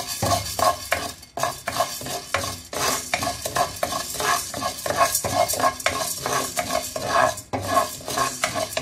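Spatula stirring chana dal (split Bengal gram) as it roasts in a nonstick frying pan: a rhythmic run of scraping strokes, a few a second, with the grains rattling and skittering across the pan over a light sizzle.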